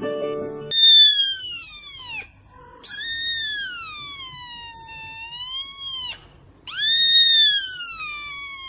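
A small kitten meowing loudly: three long, high meows, each sliding down in pitch, the first starting just under a second in.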